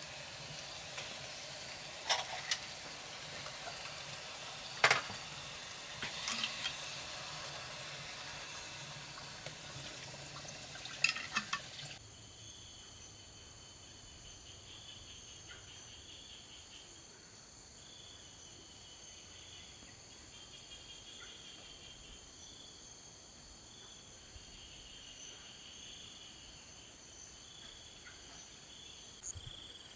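Ceramic plates and bowls clinking as they are set down on a stone tabletop, several sharp clinks over a steady hiss. After about twelve seconds this gives way to insects: steady high trilling with chirps pulsing in and out.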